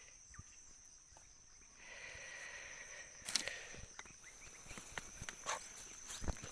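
A steady, high, thin insect drone, with scattered light clicks and rustles of handling from about two seconds in.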